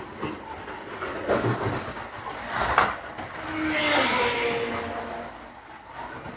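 BRM 1/24 scale NSU TT slot car lapping the track: a steady run of motor and tyre noise with a couple of sharp knocks, and a whine that shifts in pitch around the middle.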